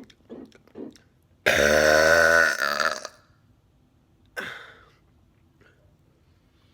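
A man's long, loud burp after drinking soda, lasting about a second and a half, followed a little over a second later by a short, fainter sound.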